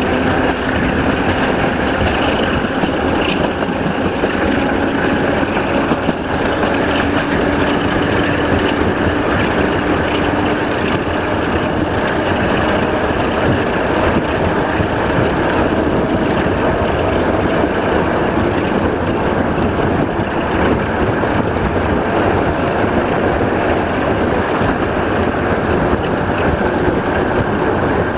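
Electroputere 060-DA (LDE2100) diesel-electric locomotive with its Sulzer engine working hard at the head of the train, heard from an open coach window behind it together with the train rolling along the track. The engine note rises slightly over the first dozen seconds.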